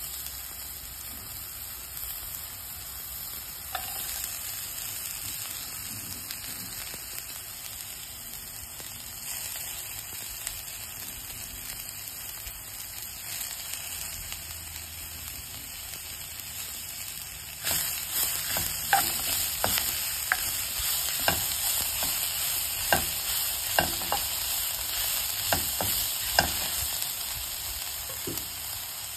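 Onions, chillies and aromatics sizzling in oil in a nonstick wok while being stirred with a spatula. Past the middle the sizzle gets louder, with a string of sharp knocks and scrapes of the spatula against the pan.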